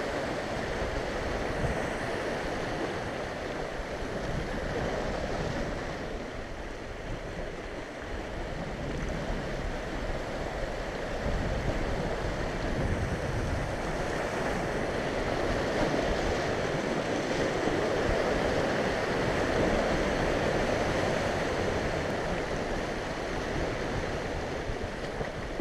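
Sea waves surging and breaking over a rocky shoreline: a steady rush of surf that swells and eases slowly over several seconds.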